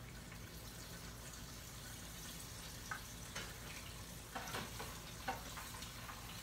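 Breaded catfish frying in hot oil: a steady sizzle, with a few light clicks in the middle.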